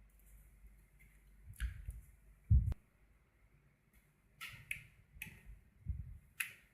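Scattered short clicks and taps from handling car wiring and a test light, with one louder low thump about two and a half seconds in.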